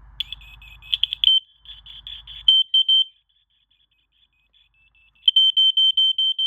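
Hardwired smoke alarm sounding on test: a high-pitched, fast beeping that stops for about two seconds in the middle and then starts again.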